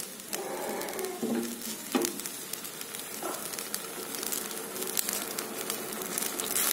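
Spiced milkfish broth boiling in a stainless steel pot, a steady bubbling sizzle with fine crackle: the fish is being boiled in water and spice paste before the coconut milk is added. A light knock comes about two seconds in.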